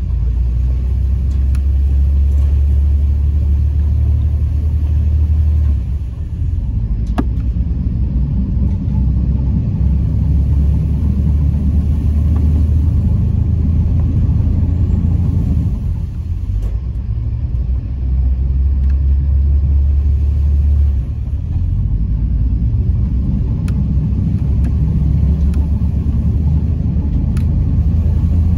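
Steady low rumble of a boat under way on a river, with wind buffeting the microphone in stretches that swell and ease every few seconds.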